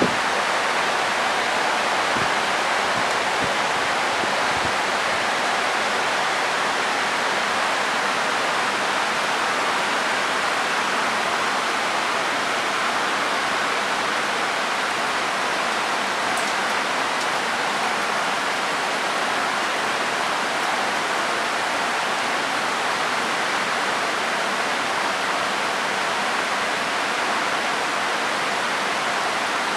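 Heavy rain falling in a downpour, a steady, even hiss that does not change.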